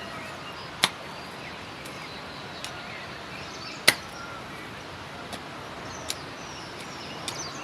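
A hand hoe chopping into soil to clear weeds, in irregular sharp strikes: a strong one about a second in, the loudest about four seconds in, and several lighter ones. Faint bird chirps sound behind them.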